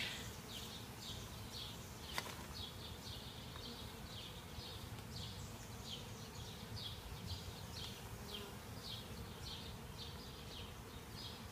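Honeybees buzzing around an open hive, a low steady hum. Over it a short high chirp repeats about twice a second, and there is a single click about two seconds in.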